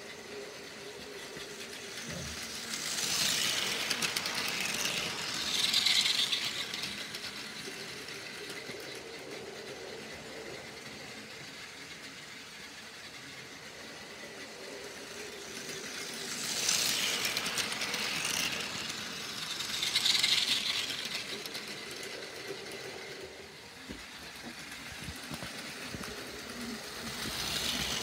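Battery-powered Plarail toy Shinkansen trains running on plastic track: a steady small-motor whir with wheels rattling over the track joints. The whir swells loudly twice, about three seconds in and again about sixteen seconds in, as a train passes close by.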